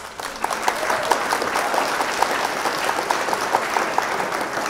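Applause, a steady dense clatter of many hands clapping, with a quick run of short repeated notes sounding through it for most of its length.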